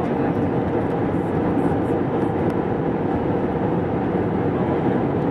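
Steady cabin noise of an Airbus A320 airliner in flight on approach: the even drone of its engines and airflow, heard from inside the cabin by the wing.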